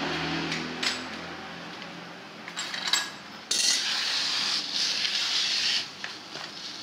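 Metal tools and engine parts clinking against each other and an aluminium basin while being handled, with a few sharp clinks, then a rough scraping rattle of about two seconds in the second half that starts and stops abruptly.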